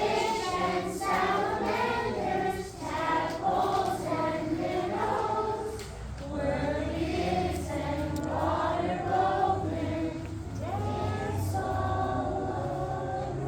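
A group of voices singing a song together, like a choir, unaccompanied or nearly so.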